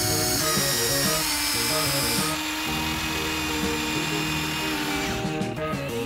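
A simple electronic melody plays while a remote-control toy vehicle's small electric motor whirs; the whirring cuts off about two seconds in.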